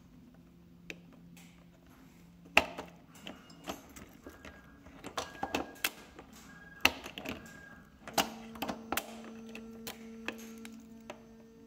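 Irregular sharp clicks and knocks from handling a motorcycle fuel tank cap: keys jangling on their ring and the key working the cap's lock, with the plastic keyhole cover flipped near the end.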